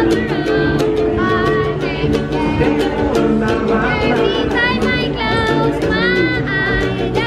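A young boy singing a song with held, sliding notes while strumming a small guitar in a steady rhythm.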